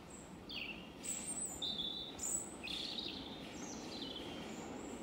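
Songbirds singing a string of short chirping and sliding whistled notes, over a steady low background rumble.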